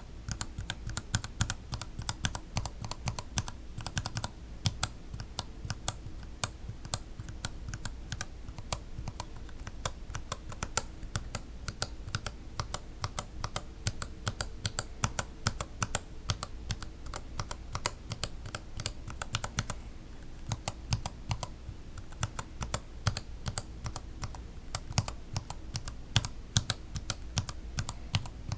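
Mechanical keyboard switches, Gateron Yellow linears, being typed on in a quick, continuous run of keystrokes, each press bottoming out with a sharp clack.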